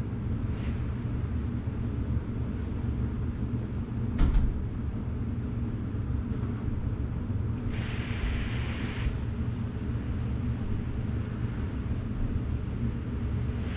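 Steady low rumble of a running carpet-cleaning extraction machine, with a single knock about four seconds in and a brief hiss around eight seconds in.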